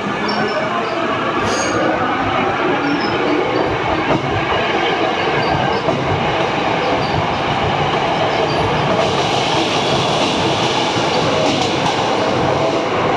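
Hankyu 7300-series electric commuter train running past along the platform: a steady noise of wheels on the rails and running gear, growing brighter about nine seconds in as the cab car comes by.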